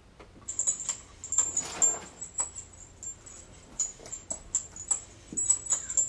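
A fistful of metal dog tags shaken and jingling, played back through a computer's speakers: quick, irregular clinks with a bright ring.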